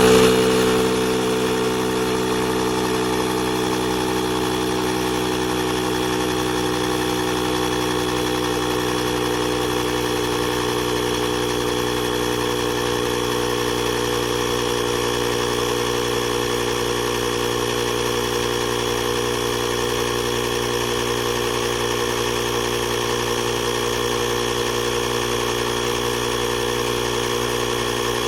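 Small 12V piston air compressor of a portable jump-starter pack switching on abruptly and then running with a steady, even drone.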